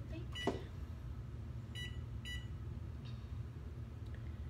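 Oven's electronic control panel beeping as its buttons are pressed to set it: two short beeps about half a second apart near the middle, after a knock about half a second in.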